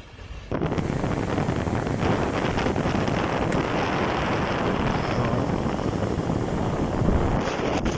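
Blizzard wind blowing hard across the phone's microphone: a loud, dense rushing noise that starts abruptly about half a second in and runs on steadily.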